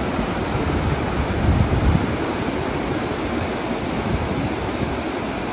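Whitewater rapids of a boulder-strewn mountain river, a steady rushing of water. About one and a half seconds in, wind briefly buffets the microphone with a low rumble.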